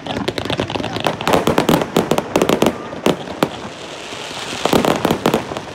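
Fireworks display going off: rapid sharp cracks and pops in dense clusters, thickest about a second in and again near the end, with a few single reports between.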